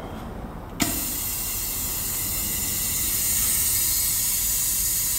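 Valve-seat vacuum tester switching on with a click about a second in, then a steady hiss of air as a motorcycle cylinder head is held against it to check that the valves seal.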